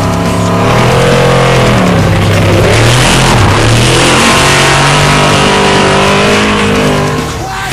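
Off-road race vehicle engine revving hard, its pitch climbing and dropping several times as it accelerates.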